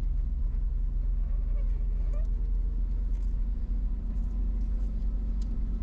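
1992 GMC Topkick's 366 tall-deck V8 running at a steady low drone, heard from inside the cab as the truck rolls along slowly.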